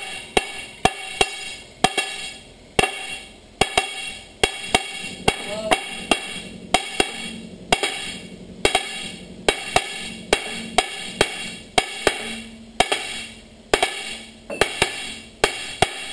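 Sledgehammer blows on a steel steam-locomotive driving-wheel tire, each a sharp clang with a short metallic ring, coming irregularly about two or three a second and often in quick pairs, as the worn tire is driven off the wheel centre.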